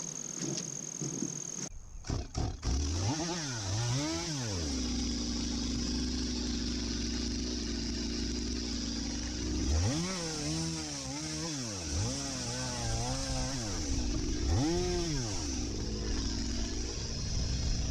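Gas chainsaw idling and being revved up several times in short runs, cutting into a dirty, sandy tree root with a chain that is already dull.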